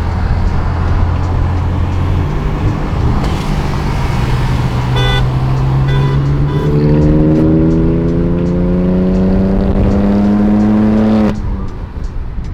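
Car engine accelerating: a steady low hum, then a pitch that climbs steadily for about eight seconds before cutting off suddenly near the end.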